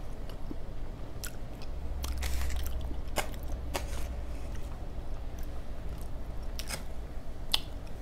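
Close-miked chewing and biting of a fried sweet potato fry, with scattered sharp clicks and crackles and a low rumble for a couple of seconds near the middle.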